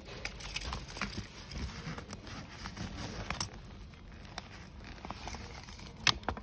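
Hands handling a measuring tape against a stroller's eco-leather and fabric seat: soft rustling and rubbing, with two sharp clicks, one about three and a half seconds in and one near the end.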